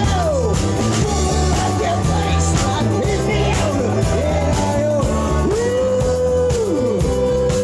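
Live rock band playing: electric guitar and drum kit over a steady low-end pulse, with a lead line of long held notes that bend and slide in pitch.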